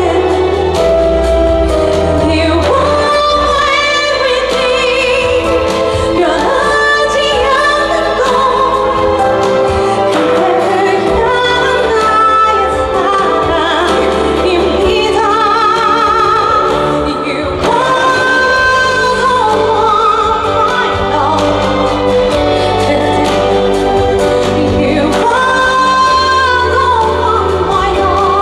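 Female ballad singer singing live over band accompaniment, long held notes with wide vibrato above a steady bass line.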